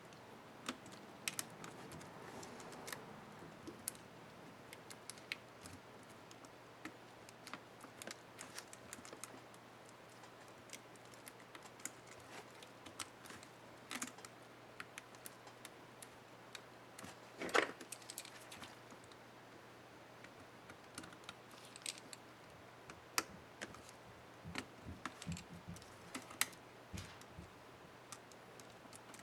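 Scattered, faint small plastic clicks and taps from an Asus K55A laptop keyboard as a keycap is worked off or fitted back on, with one louder click a little past halfway.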